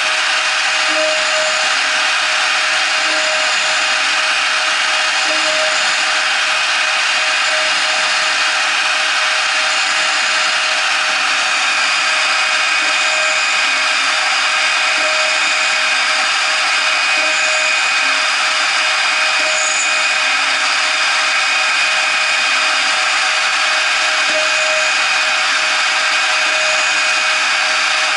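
A CNC router's 0.75 kW spindle running a 2 mm end mill through aluminium angle: a steady high whine over even cutting noise that does not break.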